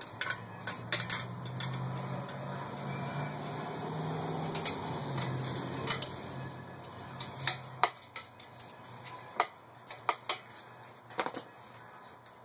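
Scattered metallic clicks and clinks of tools and parts being handled during a bicycle teardown. A low hum runs underneath for the first seven seconds or so, then fades.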